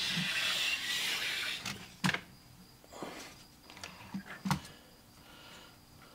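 Plastic Lego Technic model being handled and set down: a rubbing scrape for about two seconds, then several short clicks and knocks of plastic parts.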